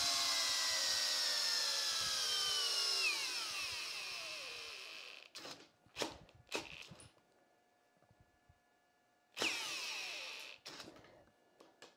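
Bosch Profactor GSB18V-1330C cordless drill driving a long auger bit down through a stack of wooden boards. Its motor whine sinks slowly in pitch under the load, then winds down to a stop about five seconds in. A few knocks follow, then a short second run of the drill about nine seconds in that also winds down.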